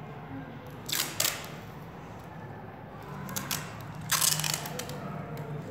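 Insulating tape being pulled off its roll in short rasps, twice: once about a second in and again about four seconds in, over a low steady hum.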